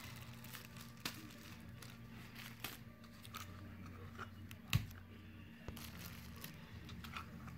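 Shiny gift-wrapping paper crinkling and rustling in the hands as a small present is folded and taped, faint scattered crackles with one sharper click about five seconds in.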